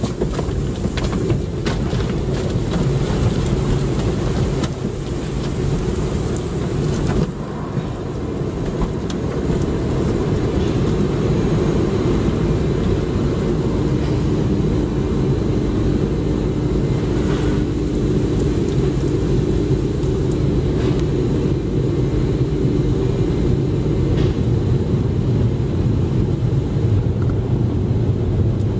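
Automatic car wash running: a steady, loud wash of noise from its water spray and machinery, heaviest in the low end. Scattered clicks and knocks come through in the first several seconds, and a faint steady hum sits under it through the middle.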